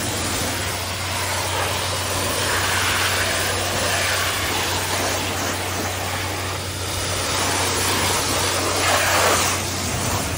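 Pressure-washer wand spraying a high-pressure jet against a truck's cab door and steel steps, a steady hiss of spray that swells and dips as the jet moves over the surfaces. Under it runs a steady low engine hum.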